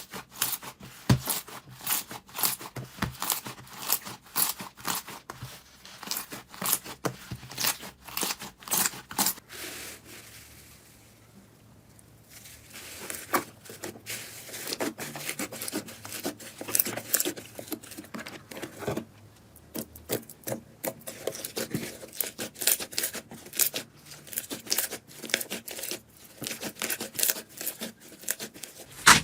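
Slime being pressed and squeezed by hand, making dense, irregular crackles and pops. There is a quieter pause about ten seconds in, then the crackling starts again.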